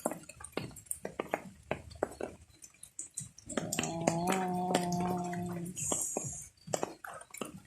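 Water dripping and splashing into pots and basins set out to catch rainwater leaking indoors: many sharp, irregular drips. In the middle, a voice holds one note for about two seconds.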